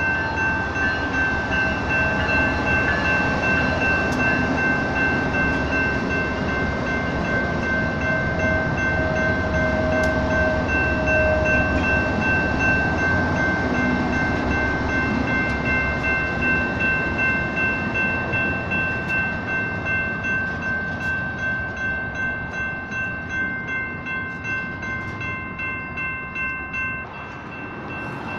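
Electronic railroad crossing bells ringing steadily at about two strokes a second while a BNSF freight train passes, first its GE C44-9W diesel-electric locomotives and then intermodal double-stack container cars, their engines and wheels making a dense rumble under the bells. The sound drops a little near the end.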